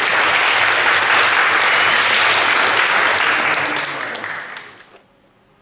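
Audience of students in a large lecture hall applauding, the clapping fading out about four to five seconds in.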